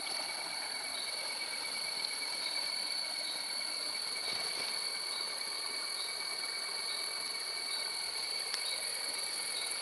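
A steady high-pitched drone over an even hiss, with faint dripping and small splashes of water as a gillnet is handled at the water's surface.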